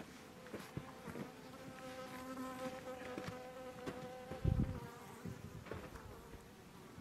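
A flying insect buzzing close to the microphone, holding a steady pitch for a few seconds before fading. A few faint ticks and a single low thump come about four and a half seconds in.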